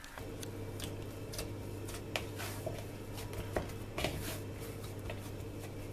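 Hands kneading crumbly, buttery poğaça dough in a plastic bowl: soft squishing and rustling with scattered small taps against the bowl as the flour is worked in. A steady low hum runs underneath.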